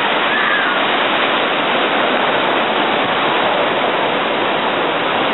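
Ocean surf breaking and washing up the shore in a steady rush of white water.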